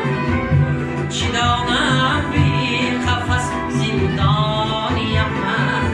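A song with instrumental backing and a steady beat, a voice singing the melody.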